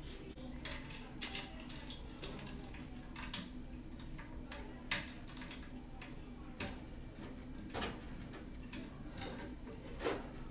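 Irregular clicks and light knocks of hard plastic and metal parts as a monitor is fitted onto its stand, over a steady low hum.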